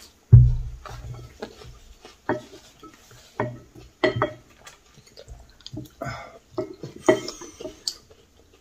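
Chopsticks clicking and knocking against ceramic bowls during a meal: a scattering of short, light clicks, with one heavy thump just after the start.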